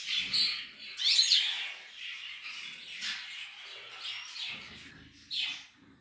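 Caged finches, goldfinches and canaries, chirping in short repeated calls. The loudest is a quick run of rising and falling notes about a second in.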